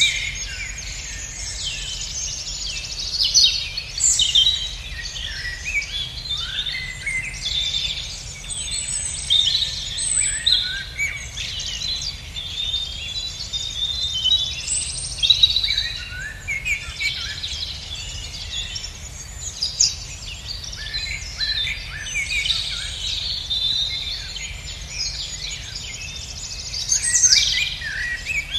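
Spring songbird chorus: many birds singing and calling at once in a dense, overlapping run of chirps and short trills, over a steady low rumble.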